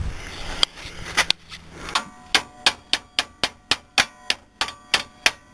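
Hammer driving a steel bolt into a Chevrolet Trailblazer's front suspension: a few scattered strikes, then a quick, even run of about four ringing metal-on-metal taps a second.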